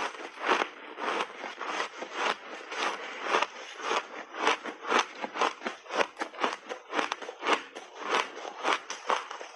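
Refrozen mixed-berry block ice being chewed with big bites, a quick run of crisp crunches, about two to three a second, close to the microphone.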